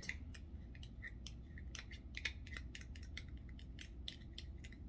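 Fork clicking and scraping against the bowl while tossing a salad in its dressing: irregular light clicks, several a second.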